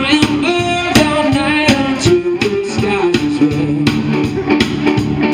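Live blues band playing through the stage PA: electric guitar lead lines over bass and drums with a steady beat.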